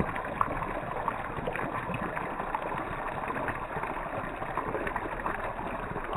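Steady rushing of flowing water, with small scattered ticks and splashes.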